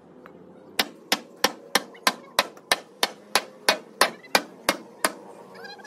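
A sledgehammer striking a curved steel plate, the blank of a tractor front blade, in a steady run of about fourteen blows at roughly three a second, which stops about five seconds in. The blows are shaping the bent steel.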